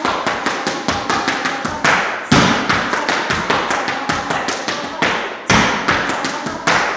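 Irish dance hard shoes beating out treble steps: a fast, even run of sharp taps on the floor, several a second, with a louder stamp opening each new section, about two seconds in and again about five and a half seconds in.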